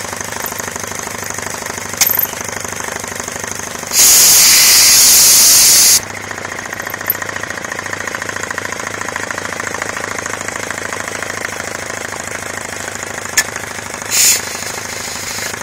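Homemade belt-driven piston air compressor running with a steady, rapid chugging rhythm as it pumps to about 100 psi. About four seconds in, compressed air hisses out loudly for two seconds, and a shorter hiss of air comes near the end, with a couple of sharp clicks between.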